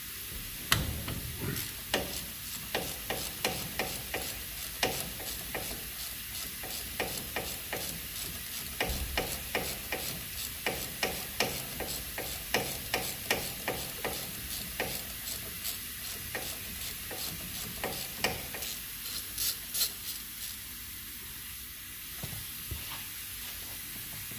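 Rapid light metallic clicks and clinks, a few a second, of a spanner being worked on the top caliper bolt of a Range Rover Classic's front brake, thinning out over the last few seconds.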